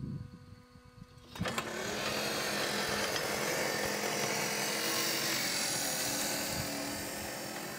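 Home-built tracked robot driven by windshield wiper motors rolling over dirt, its steel roller-chain tracks clattering under a steady motor hum. The sound starts about a second and a half in.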